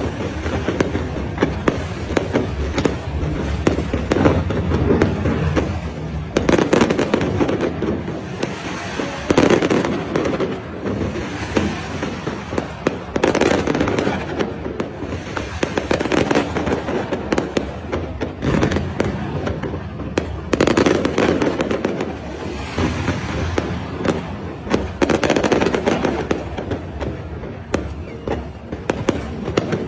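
Aerial fireworks display: a continuous barrage of booming shell bursts and dense crackling, swelling into louder volleys every few seconds.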